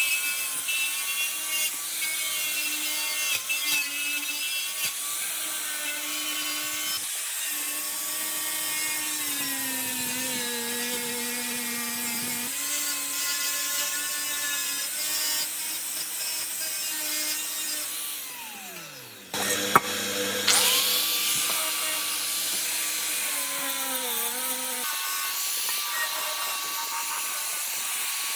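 Electric power tool motor running with a high whine and a hiss of work, its pitch dipping and recovering as it is loaded. About 18 seconds in it spins down with a falling whine, then starts again with a sharp click a second later and runs on steadily.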